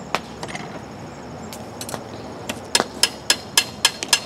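Hand hammer striking the sand mold and riser on a freshly thermite-welded rail joint to break the spent mold away. A few scattered blows, then from about halfway through a quick, steady run of sharp clanking strikes, about four a second.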